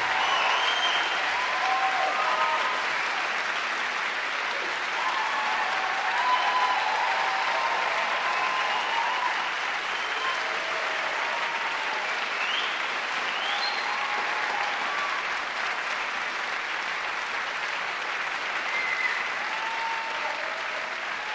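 Audience applauding after the song ends, with scattered cheers rising above the clapping, slowly dying down.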